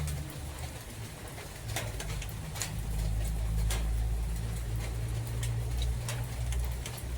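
Scattered raindrops tapping and dripping over a low, steady rumble of wind.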